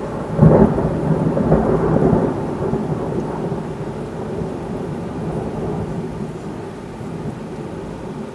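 Thunder: a sharp, loud clap about half a second in, then a long low rumble that slowly fades away.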